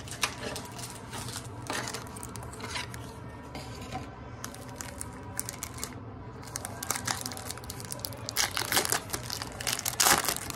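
Plastic Pokémon booster pack wrapper crinkling and tearing open as it is handled, with the crackling densest near the end.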